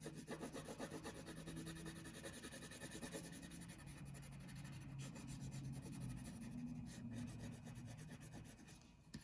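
Colouring on paper: quick, repeated back-and-forth scratching strokes as a patch of the drawing is filled in.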